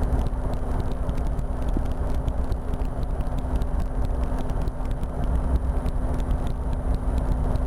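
RotorWay experimental helicopter in flight, heard from the cockpit: steady engine and rotor drone with a deep rumble and a constant low hum, mixed with airflow noise.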